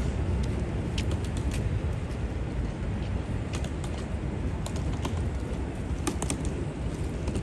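Busy city street ambience: a steady low rumble of traffic and crowd, with scattered sharp clicks and taps of footsteps on pavement.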